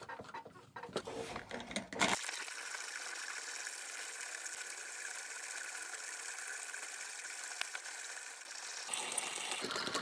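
A few clinks and knocks, then about two seconds in the steady grinding of an antique hand-cranked conical burr coffee grinder milling beans, its burrs set to the finest setting, just touching.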